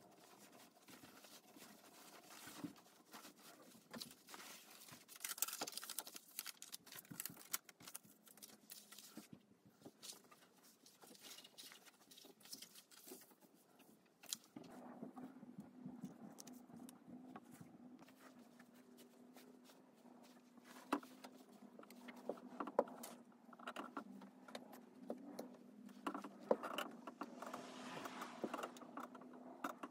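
Soft rustling and small clicks of silk pongee kimono cloth and a paper pattern being handled and laid out. A faint, steady low hum comes in about halfway through.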